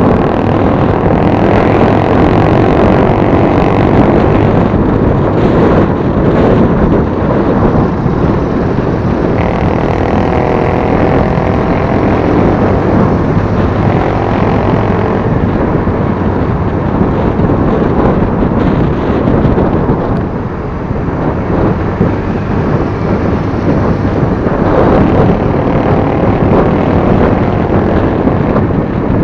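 Riding on a Honda Click 125 scooter: heavy wind rumble on the microphone over the scooter's engine and road noise, loud and steady throughout.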